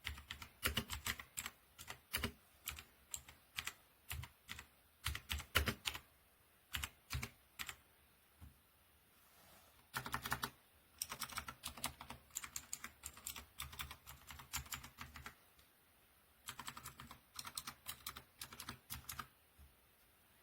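Typing on a Dierya T68SE 60% mechanical keyboard with red switches. Keys clack in irregular bursts, with brief pauses about eight seconds in and again near sixteen seconds.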